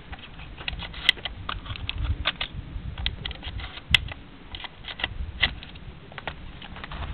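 Irregular light clicks and taps of a Benelli shotgun being handled and loaded with shells, over a low background rumble.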